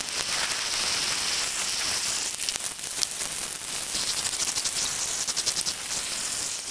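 Mountain bike riding over a rough, gritty road, picked up by a camera mounted on the handlebars: a steady hiss of tyre and ride noise with a dense run of rattling clicks through the middle.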